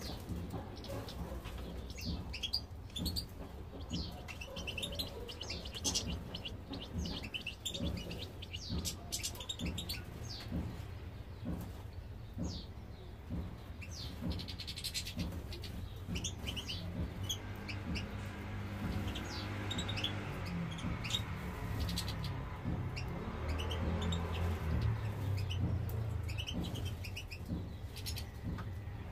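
European goldfinches chirping in an aviary: a stream of short, high calls with a quick run of twittering about halfway through, over a steady low hum.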